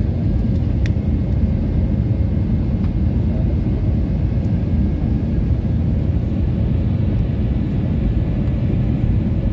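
Steady low rumble of engine and airflow noise inside the cabin of an Airbus A320neo descending on approach, heard from a window seat, with a faint steady whine above it.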